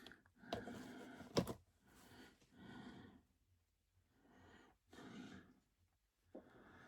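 Soft breaths close to the microphone, a few puffs a second or two apart, with one sharp click about a second and a half in.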